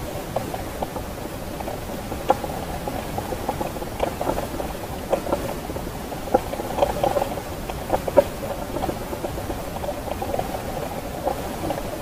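Muffled underwater sound picked up by a camera submerged in the sea: a steady hiss with irregular small clicks and crackles.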